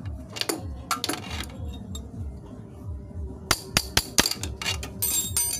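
Sharp metal-on-metal knocks and clinks from a steel tool tapping at the stuck rear wheel axle of a motorcycle: a few light clicks, then four quick knocks about three and a half seconds in, and a ringing clink near the end. The axle is seized too tight in its hub to push through.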